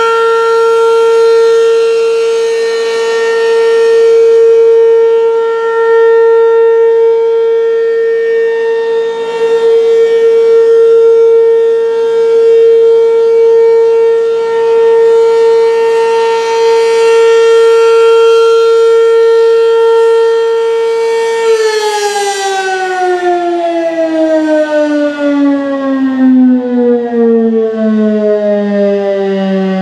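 American Signal RM-127 rotating mechanical outdoor warning siren sounding a steady single tone that swells and fades in loudness as it turns. About 21 seconds in it begins to wind down, its pitch falling steadily as the rotor coasts to a stop.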